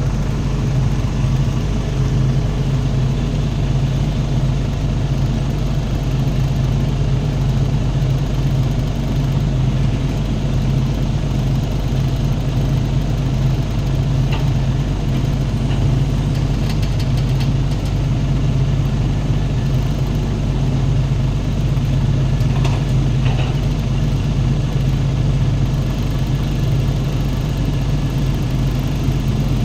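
Diesel engine of a SANY SY200C crawler excavator running steadily as the machine drives up onto a lowboy trailer, with a few faint clanks.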